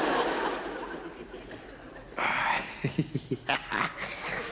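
A woman snoring: a long noisy breath, then about halfway through a louder snort that breaks into a fast low rattle, followed by another noisy breath.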